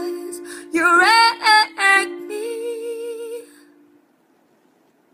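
A woman sings the song's final line over a plucked string accompaniment, ending on a held note with vibrato. The music fades out about four seconds in.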